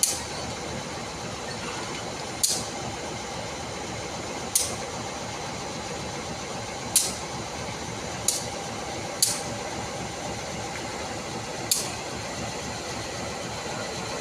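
CC201 diesel-electric locomotive idling steadily at a stand, with about seven short, sharp hisses of air at irregular intervals of one to three seconds.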